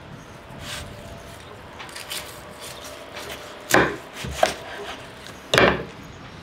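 Kitchen knife chopping through smoked ribs onto a wooden cutting board. A few light cuts and scrapes come first, then two loud chops about two seconds apart in the second half.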